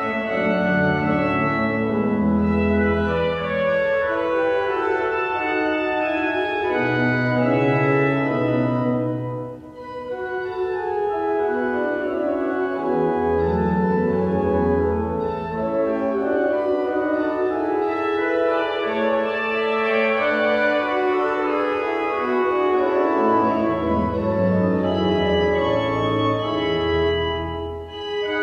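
Schnitger pipe organ playing a Baroque chorale setting in several voices, with sustained notes over low pedal bass notes. There are short breaks between phrases about ten seconds in and again near the end.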